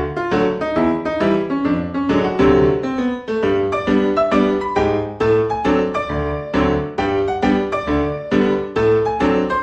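Background music: a piano playing a lively run of notes over a repeating bass line.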